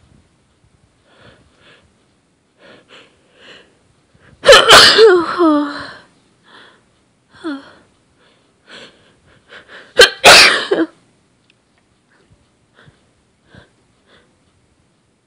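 A woman sneezing powerfully twice, the first about four and a half seconds in with a long falling voiced tail, the second about ten seconds in, sharp and sudden. Quieter short sniffs come between.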